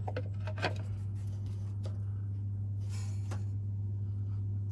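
A steady low hum, with a few faint clicks and scrapes of the speedometer bullet being worked out of the TH350 transmission's tailshaft housing.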